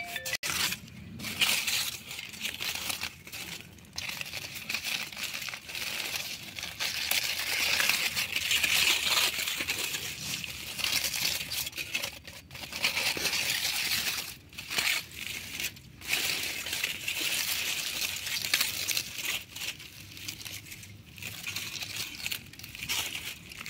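Aluminium foil crinkling and crackling as it is peeled open and pulled back by hand from a roasted chicken parcel. It comes in stretches with short pauses between handfuls.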